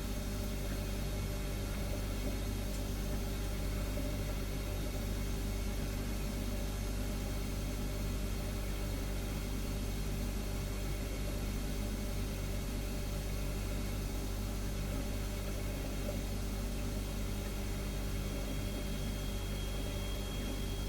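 Refrigerator humming steadily: a constant low hum with several steady higher tones over it, and a faint high whine that comes in near the end.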